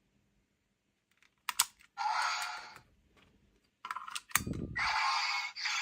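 Plastic clicks from a toy transformation device being handled and its buttons pressed, with short electronic sound effects from its small speaker about two seconds in and again from about five seconds in; a dull thump about four and a half seconds in.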